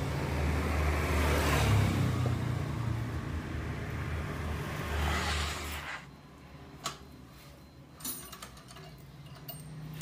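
A motor vehicle engine running with a steady low hum that swells twice, then drops away about six seconds in. After that it is quieter, with a few sharp metallic clicks of a hand wrench on the motorcycle's exhaust mounting.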